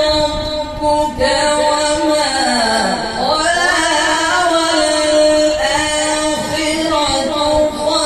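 A male qari reciting the Quran in a slow, melodic tajweed style, drawing out long held notes, with one long glide down in pitch and back up about three seconds in.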